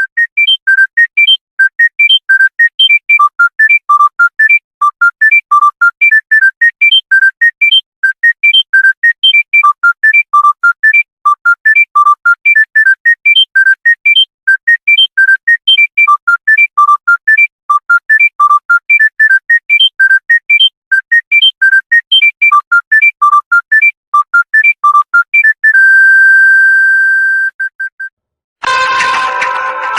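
Phone ringtone: a fast melody of short, clean synthesized beeps, about four or five notes a second, repeating the same phrase over and over. It ends on one held tone of about two seconds. After a brief gap, a fuller ringtone starts near the end.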